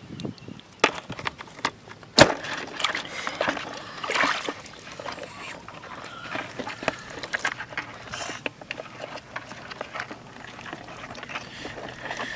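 Hands splashing and sloshing in shallow water among rocks, with many scattered clicks and knocks from the handling and one sharp knock about two seconds in.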